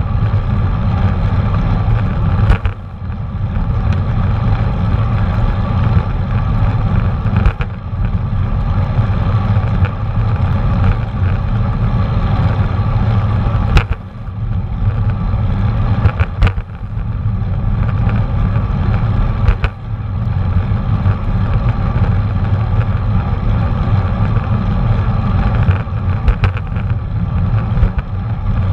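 Wind rushing over a GoPro Hero 4 Black's microphone while cycling, a steady low rumble, broken by about half a dozen sharp knocks.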